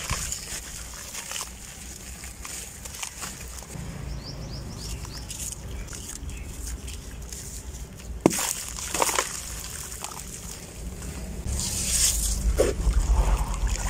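Gritty, porous grey blocks crumbled and handled over a tub of muddy water: grains trickle and patter into the water, and the blocks are dipped and set down in it with sloshing, busier and louder near the end. One sharp click about eight seconds in.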